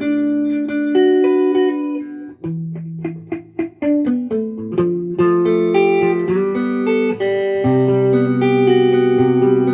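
Fender Modern Player Jazzmaster electric guitar played clean on its middle pickup position: picked notes and chords, a quick run of short muted strums about three seconds in, then full chords left ringing.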